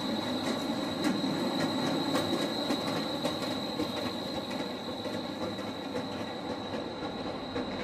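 A modern electric streetcar rolling past on street-running rails, with a steady high-pitched whine and a few faint clicks over the noise of the car going by.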